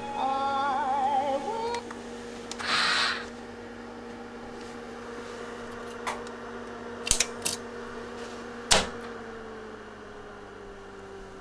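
Tandberg IS10 language-lab equipment: a brief wavering tone from its audio output, a short burst of hiss, then several sharp clicks as the key switch on the amplifier panel is worked. After the last and loudest click, the steady electrical hum slides down in pitch and fades as the equipment is switched off.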